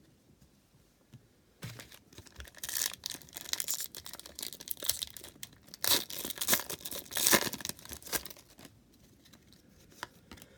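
A trading-card pack wrapper being torn open and crinkled, a run of crackling rips lasting several seconds, beginning about a second and a half in and stopping near the end.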